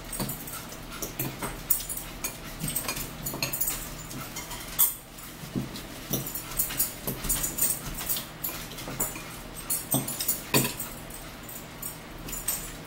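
Close-up chewing and crunching of a grilled chicken spinach salad, heard as many short, irregular crackling bursts.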